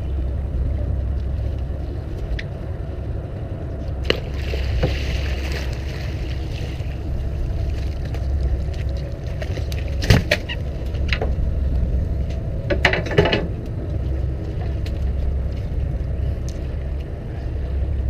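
Fishing boat's engine running steadily with a low rumble, with a sharp knock about ten seconds in and a cluster of knocks around thirteen seconds as a gaffed wreckfish is hauled over the gunwale onto the deck.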